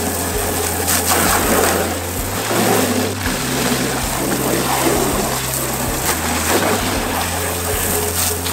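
Water from a garden hose splashing into a cut-in-half plastic 55-gallon drum, rinsing soap out of it.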